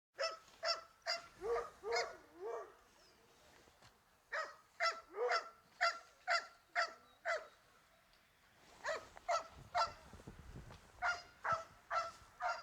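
Repeated short honking animal calls, goose-like, about two a second, in three bouts with short pauses between them.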